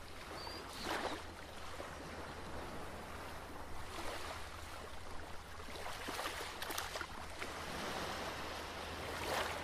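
Small waves washing in over a pebble shore, the wash swelling and fading every two to three seconds.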